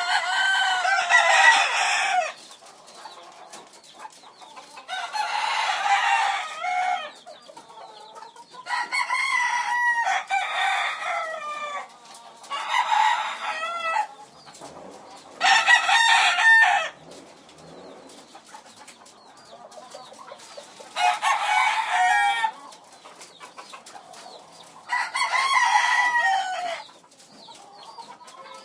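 Chickens calling: about seven loud, pitched calls, each a second or two long, separated by pauses of a few seconds.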